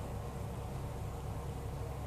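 Steady low hum with a background hiss, unchanging throughout; no distinct sound stands out.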